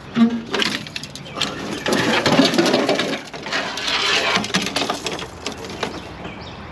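Old fishing reels being handled and cranked: a rapid mechanical clicking and rattling that starts just after the beginning and eases off about five seconds in.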